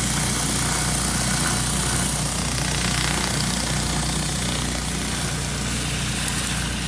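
Gas-engine Honda pressure washer running steadily, with the continuous hiss of a surface cleaner's spinning spray scouring concrete.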